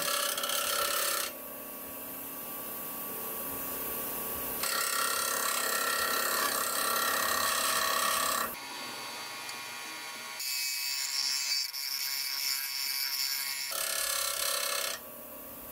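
A steel bowl gouge is ground on the 80-grit aluminium oxide wheel of a Vevor 8-inch variable-speed bench grinder with a brushless motor. Three stretches of hissing grinding noise begin and end abruptly, with the wheel spinning on its own, quieter, between them. This is the first stage of a 40/40 grind: flattening the upturned tool to set the 40-degree bevel.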